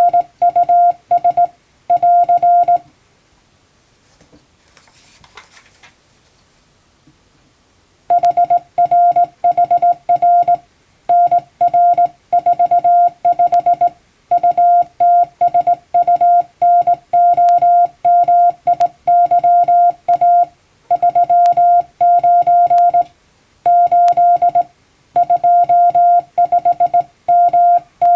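Hand-keyed Morse code in plain English text: a single steady tone switched on and off by a telegraph key in dots and dashes, at practice speed. It stops for about five seconds near the start, then the keying resumes and runs on.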